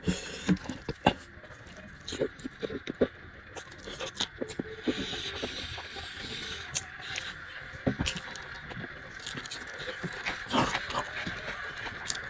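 Close-up eating sounds: irregular chewing and mouth noises with scattered sharp clicks and taps, over a steady background hiss.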